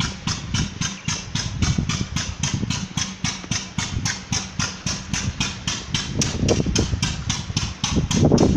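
A machine running with a steady, even ticking of about four clicks a second over a low rumble.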